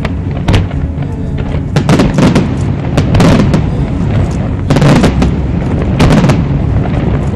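Aerial fireworks shells bursting in quick succession: many overlapping bangs and crackles, coming thick and fast over a low rumble.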